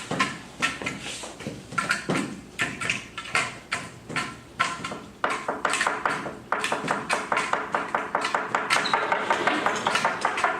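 Irregular taps and knocks; about five seconds in, a fast, even rhythm of taps with steady tones sets in, like percussive music.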